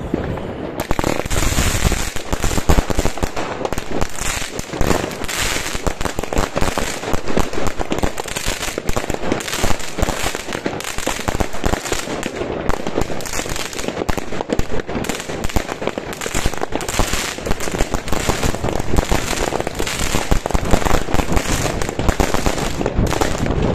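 Wolff Fireworks 'Familie Fortuin' 100-shot, 14 mm calibre firework cake firing a rapid, unbroken volley of shots and bursts.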